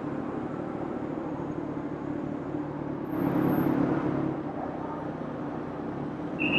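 Kawasaki Z1000 inline-four motorcycle running on the road, a steady low rumble that swells louder for about a second around three seconds in.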